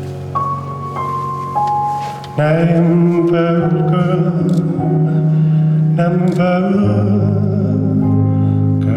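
Recorded music for a dance routine: soft held tones at first, then about two and a half seconds in it turns louder and fuller, with a singing voice over deep bass notes.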